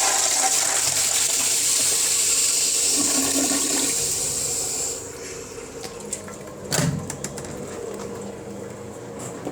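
Flushometer valve flushing an Eljer toilet: a loud, powerful rushing of water for about five seconds, then the valve shuts and the flow drops to a quieter trickle, with a single knock about two-thirds of the way through.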